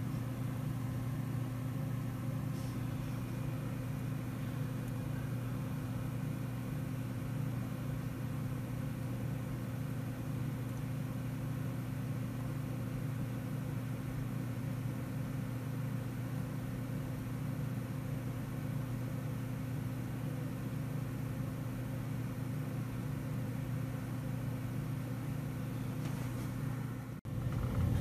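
Steady low machine hum that does not change, with a momentary break near the end.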